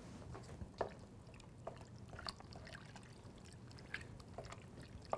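Wooden spoon stirring chicken, beans and tomatoes in a stockpot: faint wet sloshing with a few light knocks of the spoon, over a low steady hum.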